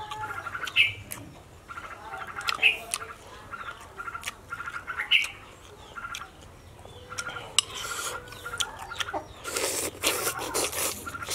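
Close-up eating sounds of a man eating fish with his fingers: chewing, lip smacking and sucking, with sharp clicks of a spoon against a ceramic sauce bowl. A bird chirps repeatedly in the background.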